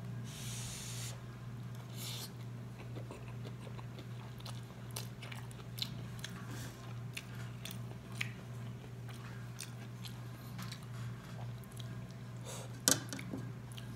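Close-up eating of saucy noodles: chewing with a slurp early on and scattered small clicks of a fork against the plate, one sharper click near the end.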